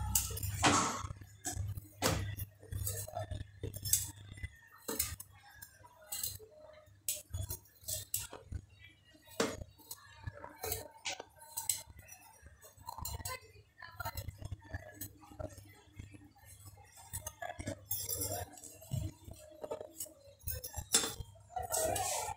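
A chef's knife cutting vegetables held in the hand, making many short, irregular clicks and taps as the blade goes through and the pieces drop into a plastic basket. A low steady hum runs underneath.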